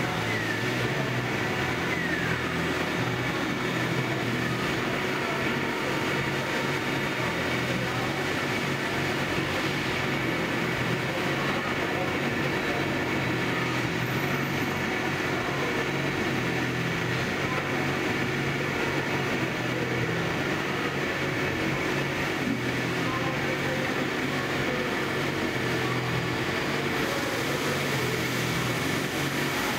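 Gildemeister CTX500 Alpha CNC lathe running steadily while machining a small metal part under coolant: a constant machine hiss with a few steady whine tones and a low hum.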